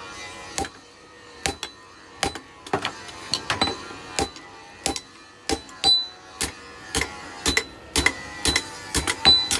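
Hand hammer striking metal over and over at an uneven pace of about two blows a second, many blows leaving a short high ring, as a metal handle for a dodos palm oil harvesting tool is shaped.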